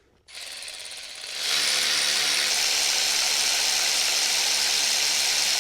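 Small handheld power tool running steadily at one speed. A quieter, lower sound comes just before it, and the tool comes up to full level about a second and a half in.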